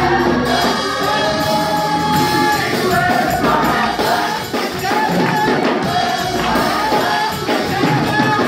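Gospel choir singing in full voice, with a drum kit and handclaps keeping the beat.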